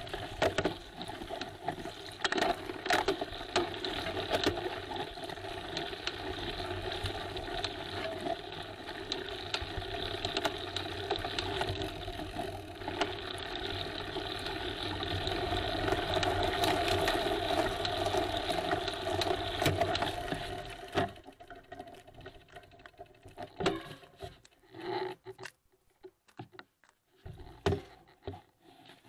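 Bicycle being ridden along a rough path: a steady tyre rumble with frequent rattles and clicks from the bike, loudest after about two-thirds of the way. It drops away suddenly about three-quarters through, leaving only a few scattered knocks.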